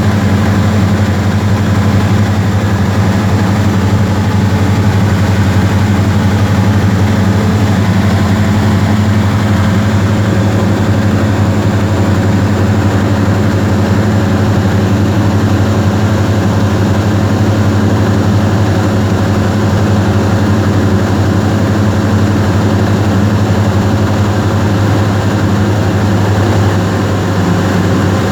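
Cessna 172R's four-cylinder Lycoming engine and propeller droning steadily in flight, heard inside the cockpit, with a steady low hum and airflow noise over it.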